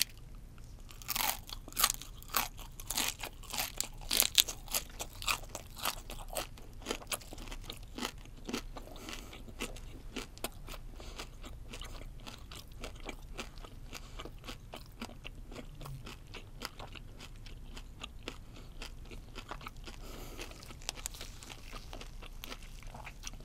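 Close-up crunching and chewing of butter-grilled chicken shrimp (Japanese spiny lobster) pulled apart by hand. The crisp crunches come thick and fast in the first half, then thin out into softer chewing.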